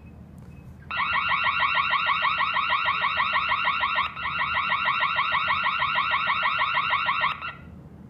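Electronic burglar alarm sounding, set off by opening a wireless magnetic door sensor: a loud siren of quickly repeating rising chirps. It starts about a second in, breaks for an instant midway and stops shortly before the end.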